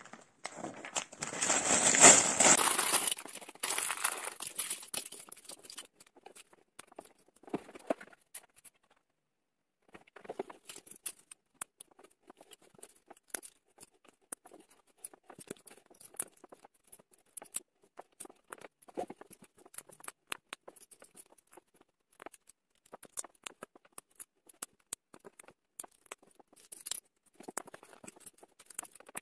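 LEGO bricks tipped out of a plastic parts bag onto a cloth-covered table, a loud rush of rattling plastic in the first few seconds. Then a long run of small, sharp plastic clicks and taps as the pieces are picked up and snapped together.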